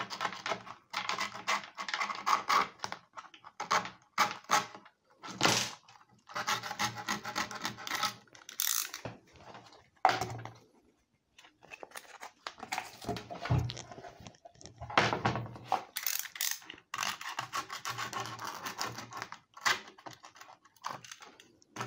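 Utility knife blade cutting and scraping through skateboard grip tape along the edge of the deck, in irregular stop-and-start rasping strokes, with a short pause about eleven seconds in.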